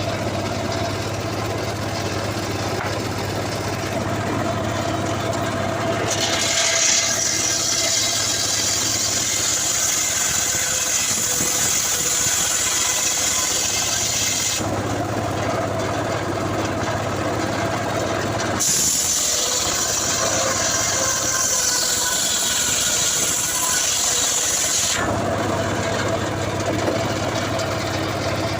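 An engine-driven saw runs steadily and cuts through coconut wood twice, each cut a loud hissing rasp, the first about eight seconds long and the second about six, with the engine running between and after the cuts.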